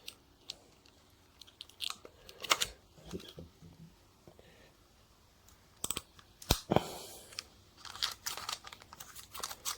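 Small clicks, taps and crinkling rustles of hands handling 35 mm film and the metal parts of a Pax Ruby rangefinder camera while threading the film leader onto its take-up spool. The noises come irregularly, with a pause in the middle and a busier run of clicks near the end.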